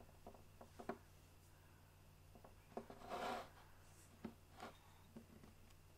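Faint taps and clicks of small plastic toy figures being picked up and set down on a tabletop: a handful of soft knocks, with a brief rustle about three seconds in.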